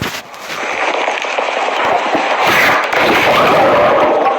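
Slime being squeezed and worked, a loud, dense crackling and popping that runs on without a break.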